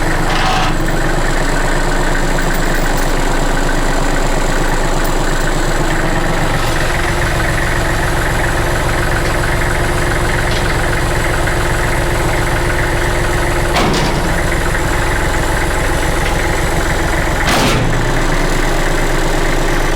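Loader tractor engine running steadily under load as it lifts, its low note getting stronger about six and a half seconds in. Two brief knocks are heard, about 14 and 17.5 seconds in.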